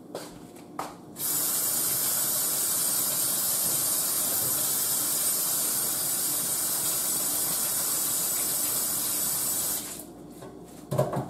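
Kitchen sink faucet turned on about a second in and running steadily while hands are washed under it, then shut off shortly before the end.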